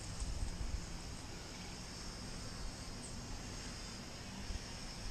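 Insects chirring steadily in a high, even drone over a quiet outdoor background, with some faint low rumble.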